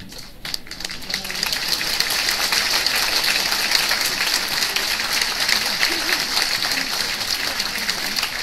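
Audience applauding, a dense patter of hand claps that swells about a second in and then carries on steadily.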